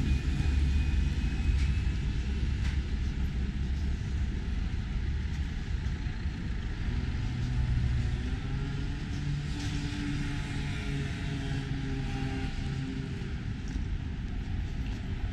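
Street traffic: a steady low rumble of cars, with a vehicle engine note rising and falling about halfway through.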